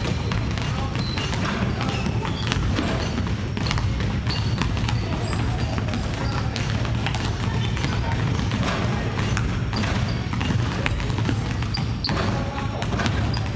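Many basketballs bouncing on a wooden gym floor, a steady run of overlapping, irregular thuds in a large echoing hall.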